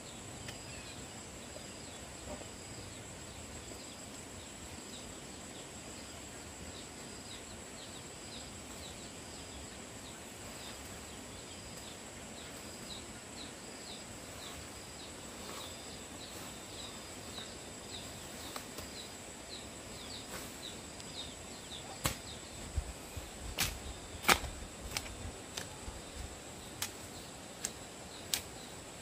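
Rural outdoor ambience: a steady high insect drone under a soft hiss, with rapid short high chirps repeating through much of it. About two-thirds of the way through comes a burst of sharp clicks and knocks, several in quick succession, then a few more spaced out near the end.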